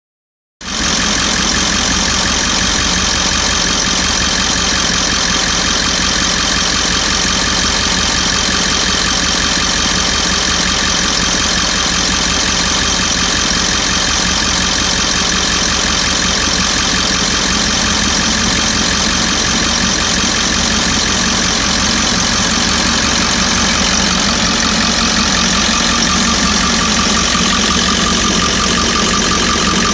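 Ford 7.3 L Power Stroke V8 turbo-diesel in an E350 van idling steadily, with an intermittent slight pop that the owner hears as the engine warms up and cannot explain. A thin steady whine joins near the end.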